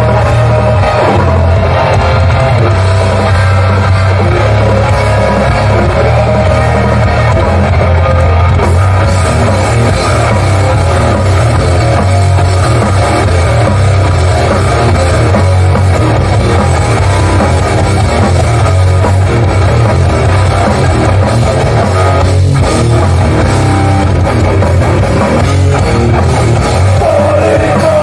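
Hardcore band playing live and loud: distorted electric guitars, heavy bass and a drum kit running without a break.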